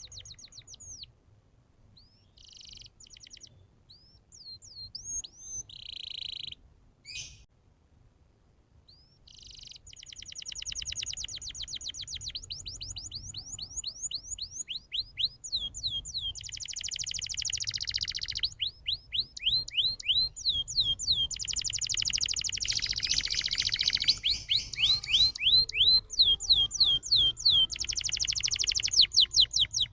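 Domestic canary singing: short trilled phrases with pauses at first, then from about ten seconds in a long, nearly unbroken song of rapid trills and rolls made of quick downward-slurred notes.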